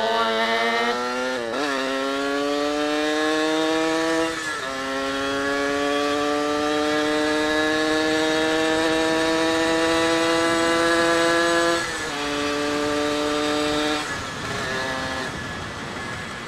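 Suzuki Satria two-stroke single with an AHRS racing exhaust, ridden under throttle. The engine note dips twice at gear changes early on, then rises slowly and steadily in one gear before dropping twice as the throttle comes off, and it fades away near the end. The rider finds it revs high but doesn't go fast.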